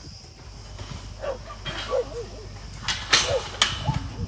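Dogs whining and yipping in short scattered calls, with a few sharp rustling knocks about three seconds in.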